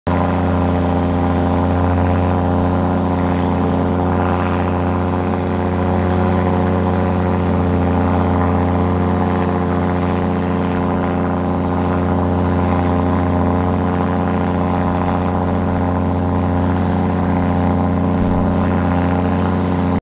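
Heavy construction machine's diesel engine running steadily at a constant pitch.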